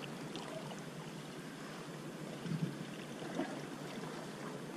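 Steady wash of sea water against the rocks of a harbour breakwater, with a soft low knock about two and a half seconds in.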